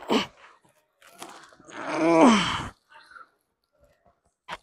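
A man's loud strained groan, about a second long and falling in pitch, about two seconds in, the sound of effort under a heavy lift. A short sharp sound just before it and a brief click near the end.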